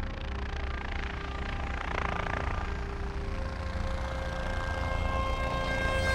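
Intro soundtrack of sustained electronic tones over a steady low hum. A noisy whoosh comes about two seconds in, and more held tones join and swell louder toward the end.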